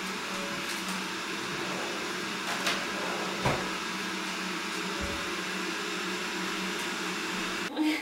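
A household appliance motor running steadily with a low hum and a hiss, with a couple of soft knocks partway through.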